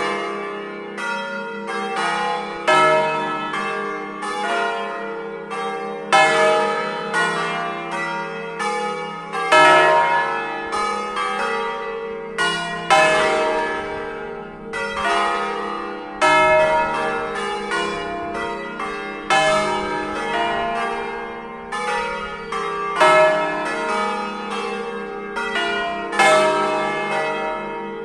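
A concerto of five swinging church bells tuned to an E-flat major scale (E♭, F, G, A♭, B♭), cast by Giorgio Pruneri of Grosio in 1892 and 1900 and by Luigi and Giorgio Ottolina of Seregno in 1951, rung by hand. Their strikes fall in quick, uneven succession and overlap in a continuous ringing hum.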